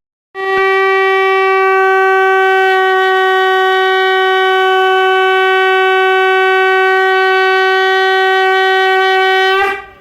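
Conch shell (shankh) blown in one long, loud, steady note lasting about nine seconds. It starts sharply and wavers briefly in pitch as it cuts off near the end.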